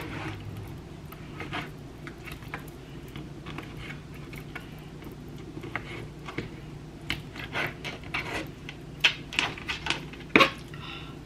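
Kitchen knife cutting raw chicken breast on a plastic cutting board: scattered taps of the blade against the board, coming more often in the second half, with a few louder knocks near the end.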